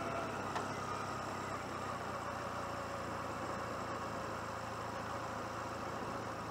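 1996 Honda CMX250C Rebel's parallel-twin engine running at low road speed, its pitch dipping a little in the first couple of seconds and then holding steady, over road and wind noise. One sharp click about half a second in.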